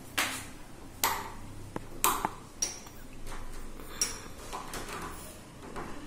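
The steel knob of a Godrej cylindrical door lock, worked with a screwdriver, gives five sharp metallic clicks with a short ring, about a second apart. The screwdriver tip is being pressed into the release hole in the knob's neck to free a knob that has jammed on its spindle.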